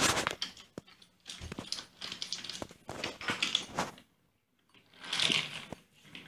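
Irregular clicks, knocks and scraping as a small toy train and a child's hands move over wooden train track and a plastic bridge piece, with a short pause a little past halfway.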